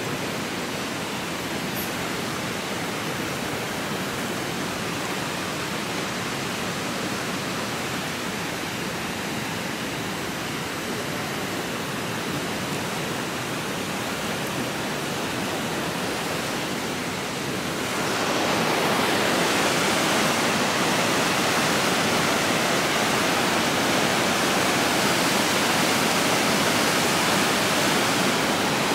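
Steady rush of whitewater pouring out of a dam outlet tunnel into a concrete channel, growing louder about two-thirds of the way through.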